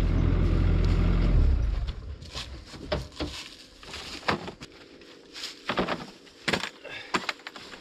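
An engine running steadily and cutting off about a second and a half in, followed by scattered sharp clanks and knocks.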